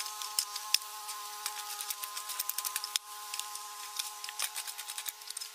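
A spade digging and scraping through loose soil in repeated sharp scrapes and clicks, over a steady buzzing hum.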